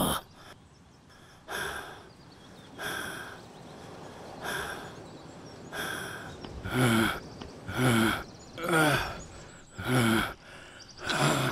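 A man panting heavily, about nine breaths a second or so apart. The first few are breathy puffs; from about halfway they turn into voiced, grunting huffs, the sound of someone winded from exertion.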